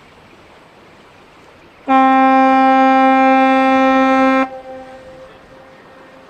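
Ship's horn of the brig Roald Amundsen sounding one steady blast of about two and a half seconds, starting about two seconds in. It cuts off sharply and leaves a fading echo.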